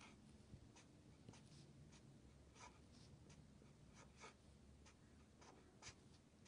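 Faint scratching of a felt-tip marker on paper: a string of brief strokes as tick marks and numbers are drawn along a number line.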